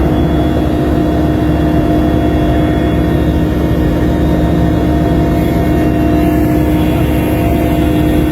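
An engine running steadily at a constant pitch, with a continuous hum over a low rumble.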